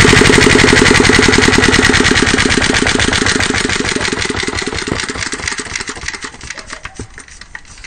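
Yanmar NT65K water-cooled single-cylinder diesel engine being shut down: its steady, even firing slows and fades over several seconds until only a few spaced-out beats remain as it runs down to a stop.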